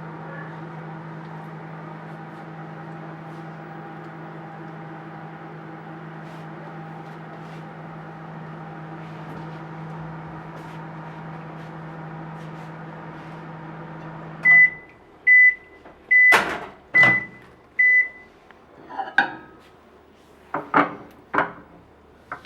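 Microwave oven running with a steady hum. About two-thirds of the way through it stops and beeps five times, which means the heating cycle is done. Sharp clicks and knocks follow, the loudest among the beeps.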